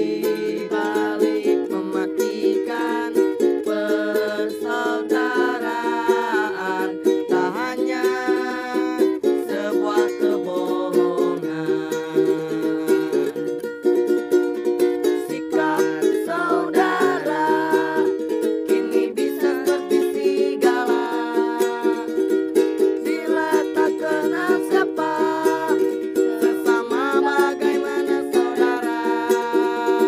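Ukulele strummed in a steady rhythm, with a voice singing a melody over it.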